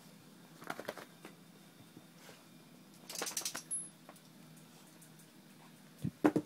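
A dog moving about on a cushioned dog bed: short bursts of rapid clicking and rustling about a second in and again around the middle, then two louder soft thumps near the end.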